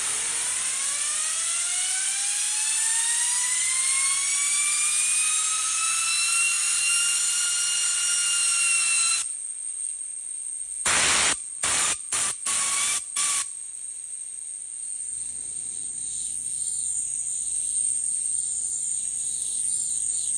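A bearing spun by the jet from a compressed-air blow gun: air hiss with a high whine that rises steadily in pitch for about nine seconds as the bearing overspeeds. The air stops, five short blasts of air follow, and the whine fades as the bearing spins down. Overspeeding like this ruins the bearing.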